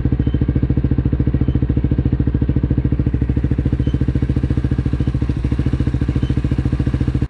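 Buccaneer 125 motorcycle engine running steadily on freshly changed engine oil, an even exhaust pulse of about twelve beats a second, heard close to the exhaust.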